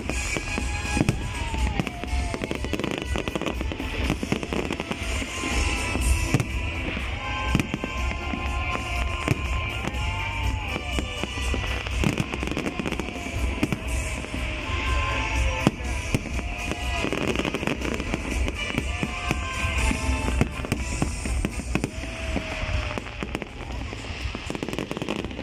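Aerial fireworks display: a continuous barrage of shell bursts, bangs and crackling, with music playing underneath.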